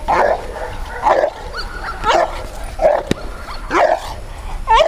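Bullmastiff barking repeatedly at a decoy in protection training, about six barks, each under a second apart.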